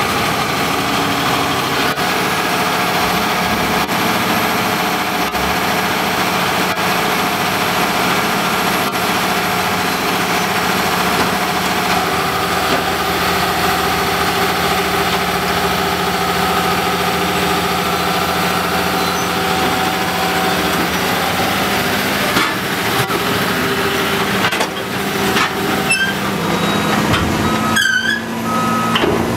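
Heavy diesel farm machinery (tractor and forage harvester engines) running steadily at silage work. A few knocks come past the twenty-second mark, and a reversing alarm starts beeping just before the end.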